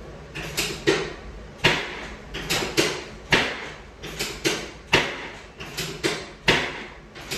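Chiropractic hip adjustment on a treatment table: a quick, uneven series of sharp knocks, about two a second, some louder than others.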